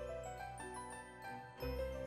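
Background music: a melody of short stepped notes over a low bass, with a new bass note coming in about a second and a half in.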